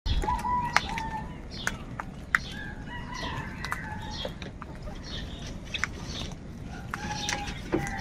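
A flock of house crows calling, with repeated short cawing calls overlapping one another while they feed. Several sharp clicks come in between the calls.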